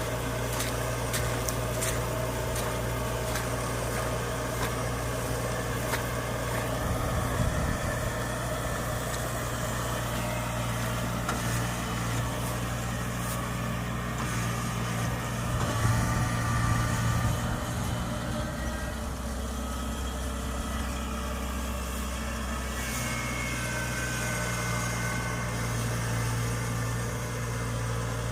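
Kubota rice combine harvester's engine running steadily, a continuous low hum with a few sharp clicks in the first seconds and a brief rise in level about halfway through.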